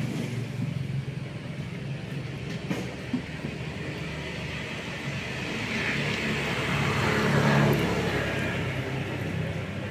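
Road traffic: a steady low engine rumble, with a passing vehicle swelling to its loudest about seven to eight seconds in.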